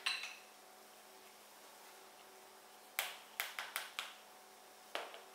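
Wire whisk clicking against a plastic mixing bowl while stirring a batter: a click at the start, a quick run of about five clicks about three seconds in, and one more near the end.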